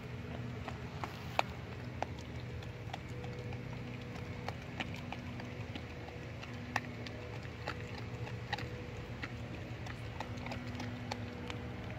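German Shepherd puppy chewing a raw fish: irregular sharp clicks and cracks of teeth on flesh and bone, a few a second, over a steady low hum.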